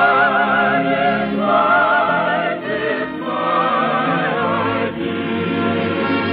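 A choir singing with an orchestra: the music opening an act of a radio operetta.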